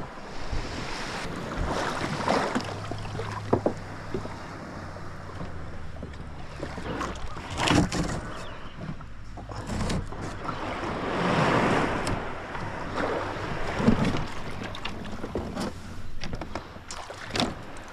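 Water sloshing and splashing against a kayak hull, swelling and fading several times, with wind buffeting the microphone and a few sharp knocks.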